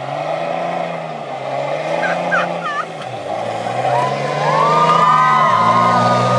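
Pickup truck engine accelerating away, its pitch climbing and falling with gear changes and dipping about three seconds in. About four seconds in, a high steady squeal joins and holds for about two seconds.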